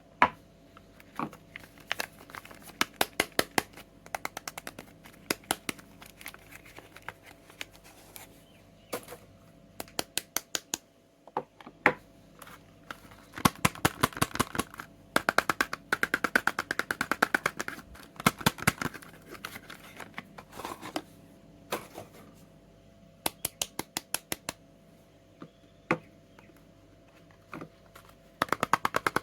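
Quick runs of sharp clicks and taps, with a stretch of crinkling in the middle, from soap and its packaging being handled and opened.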